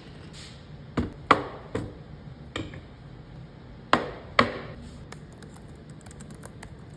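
About six sharp knocks, loosely in pairs, then a patter of faint light ticks near the end: the sound of things being handled on a kitchen counter.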